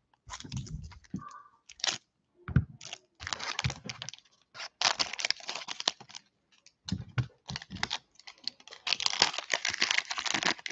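Foil wrapper of a football trading-card pack crinkling and tearing as it is handled and opened: a quick string of short rustles and crackles, busiest near the end.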